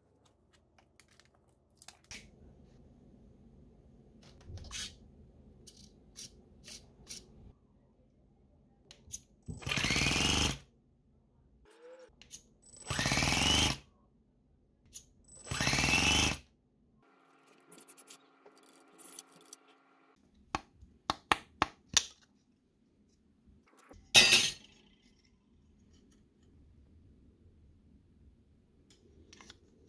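Brushless electric starter motor on a Toyan FS-S100A four-stroke nitro engine, run in three short bursts of about a second each with a rising whine as it spins the engine over. A steady hum, a run of sharp clicks and one more short burst follow.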